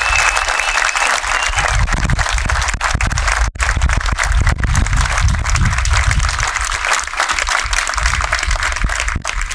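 Crowd of wedding guests clapping and cheering, with a held high cheer fading out in the first second or so; the sound cuts out for an instant about three and a half seconds in.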